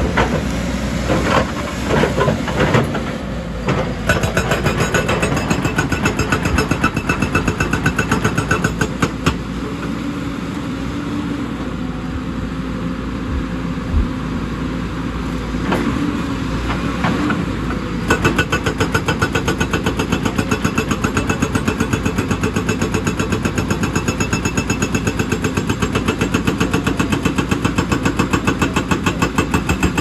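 Hydraulic rock breaker on a JCB tracked excavator hammering rock in rapid, regular blows over the running diesel engine. The hammering pauses for several seconds around the middle, leaving the engine running, then resumes steadily for the last third.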